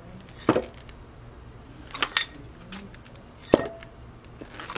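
A few sharp metallic clinks from something loose inside a blown car-audio subwoofer as it is tilted in the hands, the loudest about three and a half seconds in with a brief ring. The loose part is what the installer assumes is wrong with the woofer.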